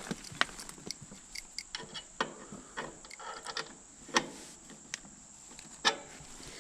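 Scattered clicks and knocks of something being handled, the loudest about four and six seconds in, over a steady high-pitched tone.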